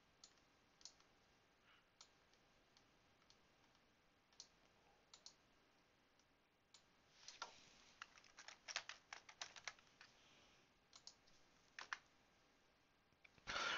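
Faint typing on a computer keyboard, a short run of keystrokes about halfway through, with scattered single mouse clicks before and after.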